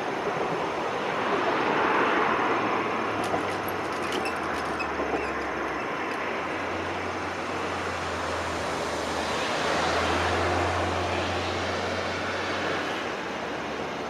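Rumble of an electric train that has just passed the level crossing, fading into the distance as a steady rushing noise with a low hum. It swells slightly a couple of times.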